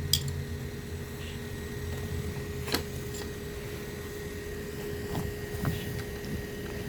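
A few short, sharp clicks and knocks of hand tools being handled during bolt work on a wheelbarrow, over a steady low hum.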